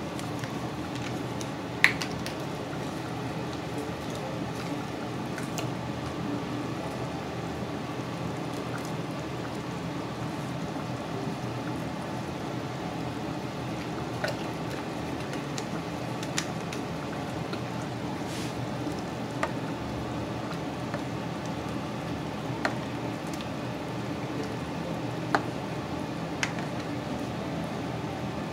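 Pot of chicken and pork afritada in tomato sauce simmering: a steady bubbling hiss with scattered small pops, and one sharper click about two seconds in.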